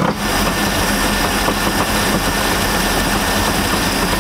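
MerCruiser sterndrive engine idling steadily with the Alpha One outdrive shifted into reverse by hand. Along with it runs an odd noise from the transom, which the owner takes for worn U-joints.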